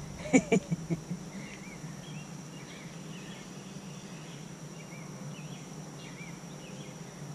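Outdoor background with small birds chirping now and then over a steady low hum and a faint steady high insect whine. A quick cluster of loud, short sounds comes about half a second in.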